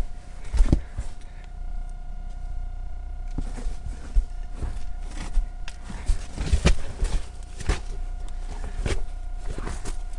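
Irregular knocks, scuffs and thumps of a person making his way through a narrow dug-out tunnel, with handling noise from the camera he carries; a faint steady hum runs underneath.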